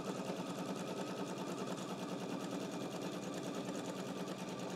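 Domestic electric sewing machine running at a steady speed, stitching a seam through fabric with a rapid, even stitch rhythm.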